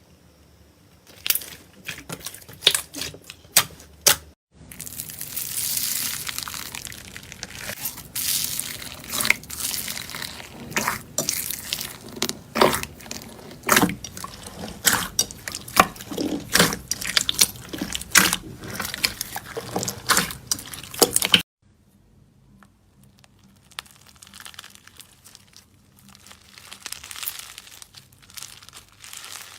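Slime being squeezed, poked and stretched by hand, giving dense sticky pops, clicks and crackles. The sound changes abruptly twice, as one slime clip cuts to the next, and it is quieter and sparser near the end.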